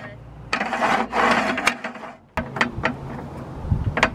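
Table saw miter gauge being slid and handled on the metal saw table: a scraping rub for about a second and a half, then a run of sharp clicks and knocks.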